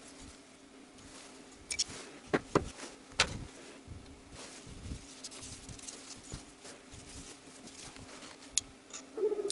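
A few light metallic clicks and knocks as a connecting rod, its cap and a bearing shell are handled at a workbench, over a faint steady hum.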